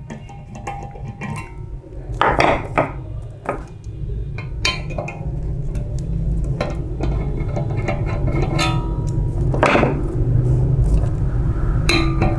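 Screwdriver working the three screws out of the metal end flange of a Toshiba e-Studio 856 copier drum, with scattered sharp metallic clicks and clinks from the tool and the loose screws. Under them runs a steady low hum that grows louder after about four seconds.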